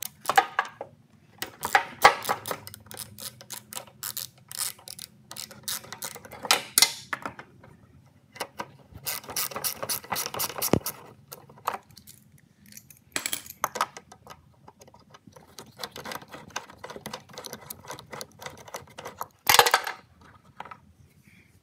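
Socket ratchet with an extension clicking in repeated bursts of strokes as a 10 mm bolt is unscrewed from under a lawn mower deck, with a louder clatter near the end.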